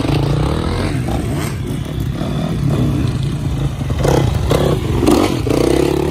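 Several dirt bike engines revving up and down as the bikes ride through loose dirt, with louder bursts of throttle from about four seconds in.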